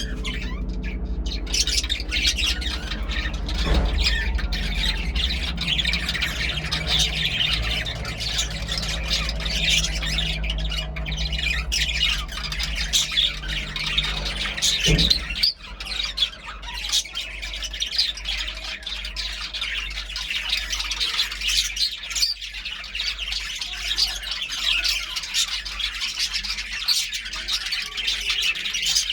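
Budgerigars chattering, with a constant stream of rapid chirps, warbles and squawks. A low hum sits underneath for the first half and stops about halfway through.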